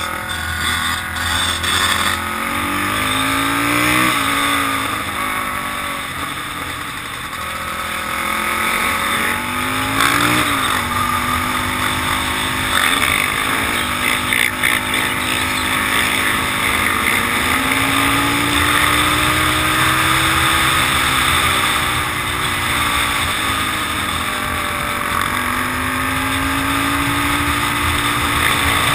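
Polaris Outlaw 500 quad's single-cylinder four-stroke engine running at speed, its pitch rising and falling several times as it accelerates and eases off, with steady wind rush over the microphone.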